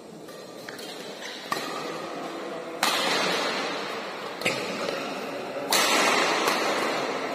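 Badminton rally: rackets striking the shuttlecock about four times, each a sharp smack followed by a long echo in the large hall, the loudest hits about three and six seconds in.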